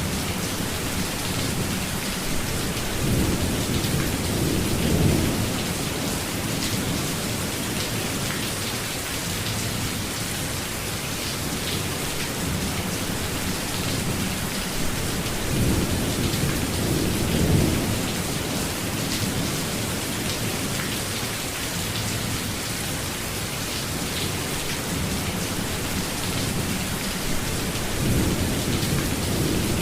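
Steady heavy rain falling in a thunderstorm, with low rolls of thunder swelling up three times: early on, in the middle, and near the end.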